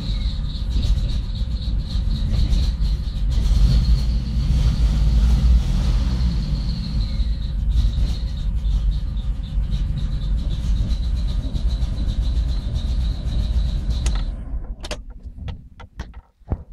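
1993 Chrysler Grand Voyager engine running unevenly with a steady high whine over it, which the owner describes as poor running and misfiring. About 14 seconds in it dies away and stops, followed by a few faint clicks.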